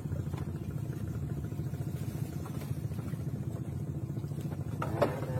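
A steady low engine drone with an even pulsing rhythm, running without change. A voice begins near the end.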